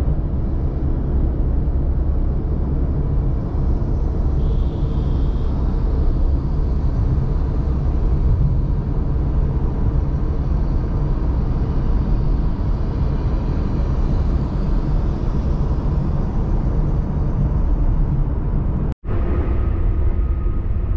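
Steady low rumble of a moving vehicle, with road and engine noise, broken by a brief dropout near the end.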